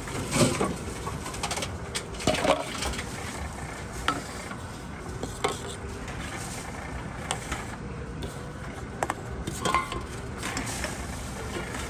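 Aluminium cans knocking and clinking as they are fed into a Tomra T-90 reverse vending machine and ride its conveyor, a handful of uneven metallic clacks over a steady low background hum.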